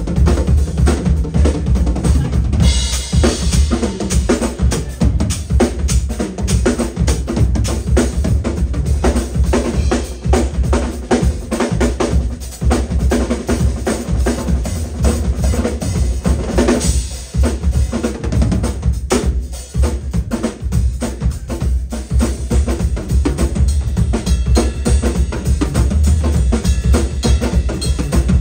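Three full drum kits played together in a dense drum jam, with kick drums, snares, toms and cymbals going at once. One of the kits is a Tama.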